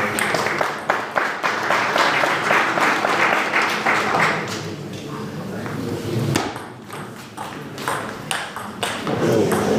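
Table tennis rally: the ball clicking sharply off the players' bats and the table, in a quick run of hits through the first half and fewer, more spaced ones later.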